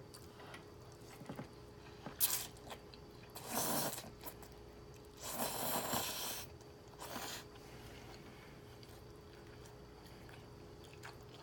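Close-miked eating sounds of a person eating noodles with beef and broccoli: bites and chewing, in a few separate noisy bursts, the longest about a second and a half long near the middle.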